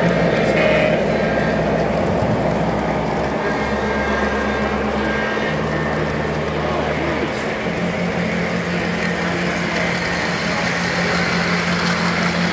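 O-gauge three-rail model trains running on the layout: a steady hum and rumble of locomotive motors and wheels on track. The hum shifts in pitch a few times as different trains pass.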